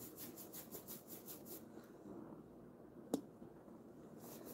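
Paint brush scrubbing paint onto a dresser's drawer front in quick, rhythmic strokes, about four or five a second. The strokes stop about two seconds in, a single sharp click follows a second later, and the strokes start again near the end.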